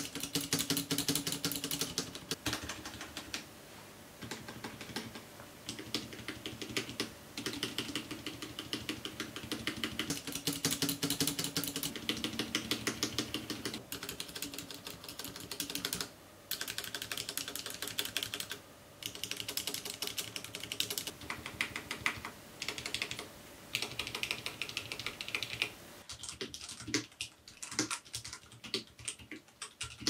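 Rapid key presses on a FILCO Majestouch Ninja TKL with Cherry MX Red linear switches, mostly bare switches with the keycaps removed, before its dampening mod and stabiliser lubrication. A dense clatter with brief pauses. Near the end it changes to duller, quieter typing on the finished, modded keyboard.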